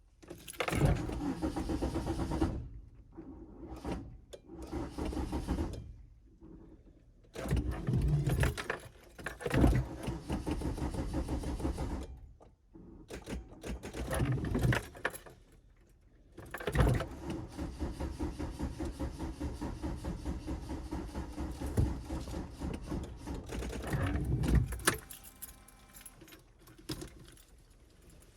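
Van's starter motor cranking the engine in several separate attempts, the longest about eight seconds, with a pulsing rhythm and no catch: the engine won't start.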